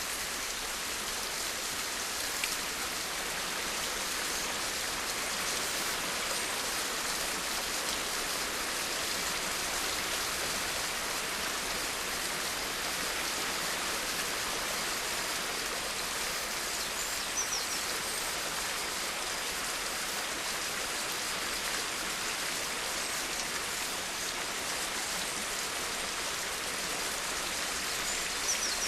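Steady rain falling, an even hiss of drops that does not change. A faint high chirp sounds once past the middle and once near the end.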